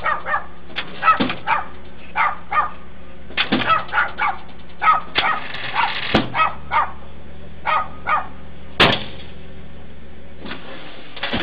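A dog barking repeatedly in short, irregular barks, over the steady hum of an idling vehicle engine. A single sharp knock sounds about nine seconds in.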